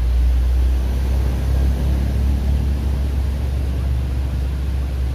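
Wind buffeting the microphone: a loud, steady low rumble that swells and eases, with the stream's flow as a faint hiss beneath it.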